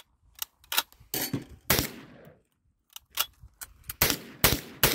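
M1 Carbine firing semi-automatic: a string of about eight shots at an uneven pace, two to three a second, each crack followed by a short echo.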